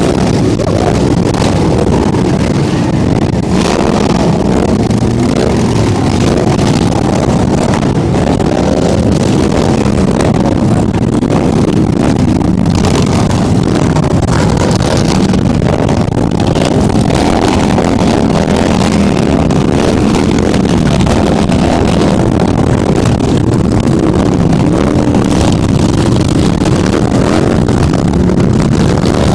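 Many motorcycle engines running together in a group ride, a loud, steady din with no break.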